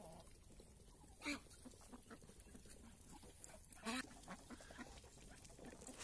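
Faint sounds of a farmyard poultry flock of muscovy ducks and turkeys, with a few short calls, one about a second in and another near four seconds.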